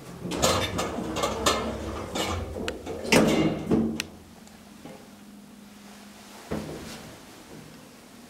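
Hydraulic elevator's doors clattering and banging shut, a run of knocks over the first four seconds with the loudest bang about three seconds in. A low steady hum follows, with one more knock about six and a half seconds in.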